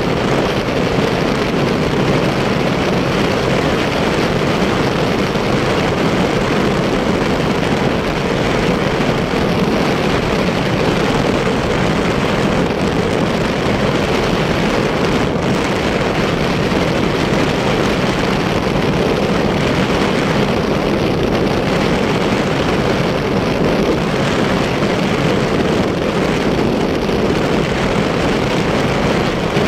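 Motorcycle cruising at a steady speed: an even rush of wind and road noise that holds level throughout.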